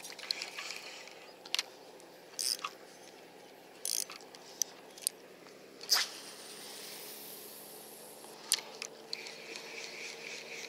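Spinning rod and reel being handled: scattered sharp clicks and short rasps, a louder click about six seconds in followed by a couple of seconds of hiss, and a faint steady whir near the end.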